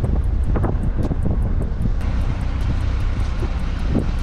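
Car driving, heard through a camera mounted on the outside of the car: a steady low rumble of wind buffeting the microphone mixed with engine and tyre noise.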